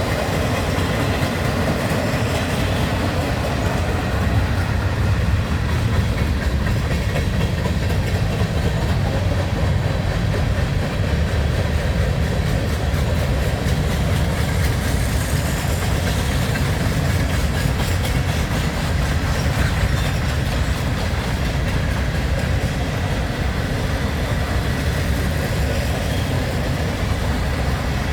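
Lake State Railway freight train rolling past at steady speed, a continuous low rumble of cars with wheel clatter on the rails.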